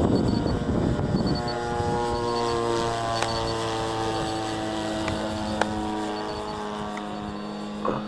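RC model warplane's motor and propeller running steadily as the plane flies overhead, a held pitched drone. Wind buffets the microphone during the first second or so.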